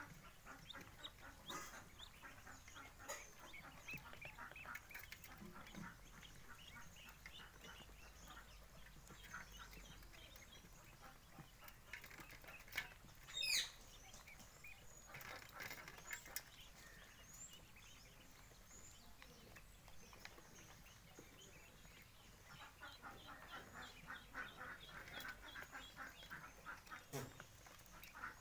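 A flock of ducklings peeping faintly, many short high calls overlapping, busiest near the start and again in the last few seconds. A single louder, sharper sound comes about halfway through.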